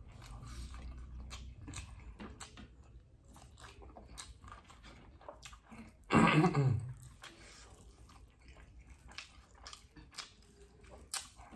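Mukbang mouth sounds: two people chewing eggplant sambal and fried egg eaten by hand, with many small clicks throughout. About six seconds in, one of them makes a short, loud vocal sound that falls in pitch.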